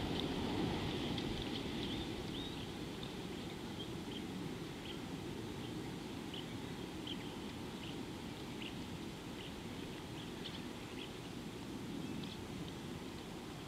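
Small birds calling in short, high chirps, one every second or so, over a steady low rumble.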